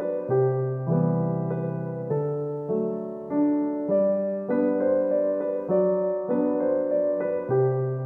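Background music: a gentle keyboard melody over chords, a new note struck about every half second, each fading before the next.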